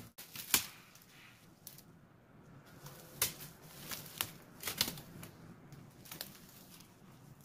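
Fern fronds and undergrowth rustling as they are handled and pushed through, with about half a dozen sharp snaps of fern stems being broken off by hand. The loudest snap comes about half a second in.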